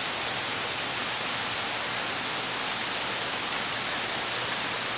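Steady heavy rain falling: a continuous even hiss with no breaks or separate drops standing out.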